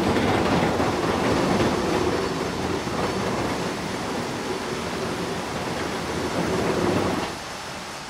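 Sawmill machinery running with a steady rattling rumble, which drops off sharply about seven seconds in.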